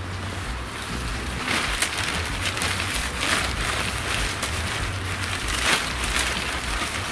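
Oxford 200 tent fabric of an umbrella-type ice-fishing tent rustling and swishing as it is gathered and folded by hand, with several loud swishes. Wind rumbles on the microphone underneath.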